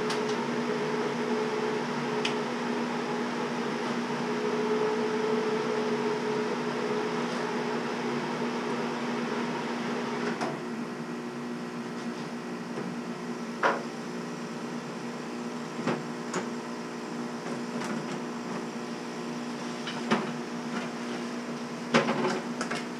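Steady hum of a Chinese CO2 laser cutter and its inline exhaust fan. About ten seconds in part of the hum cuts off and it drops to a lower drone as the machine is switched down, followed by a few sharp knocks and clicks as the lid is opened and the cut foam board is handled.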